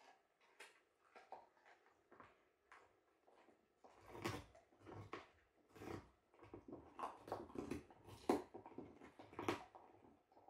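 Akita Inu dogs gnawing frozen raw marrowbones: irregular crunches and scrapes of teeth on bone, sparse at first, then louder and more frequent from about four seconds in.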